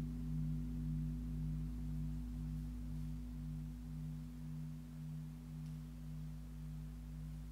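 Large gong tuned to G#1 (51.91 Hz) ringing on after a strike: a deep, steady hum with a slow wavering pulse, fading gradually.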